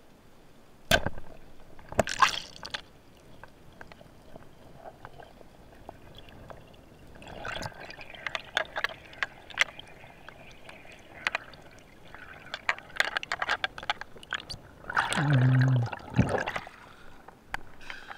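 Underwater sound on a spearfishing dive: a sharp crack about a second in, as the band-powered speargun fires at the fish, and a second noisy burst a second later. Then crackling, bubbling water as the diver rises, with a loud wet gush carrying a low hum near the end as he reaches the surface.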